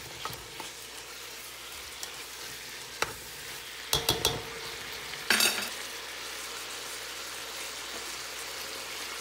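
Beef and onions sizzling steadily in a frying pan as they are stir-fried. Near the middle, a metal spoon knocks and scrapes against the pan a few times while stirring the meat.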